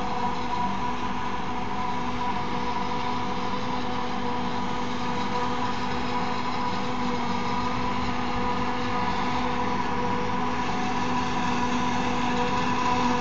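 New Holland FX60 self-propelled forage harvester chopping standing maize and blowing the silage into a trailer, a steady whine of cutterhead and blower over the engines, with the tractor pulling the trailer running alongside. The level holds even, rising slightly near the end.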